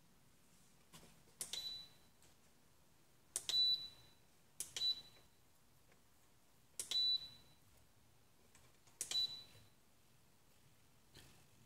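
Five sharp clicks spaced one to two seconds apart, each followed by a short high beep, from a Spektrum DX6 radio transmitter's controls.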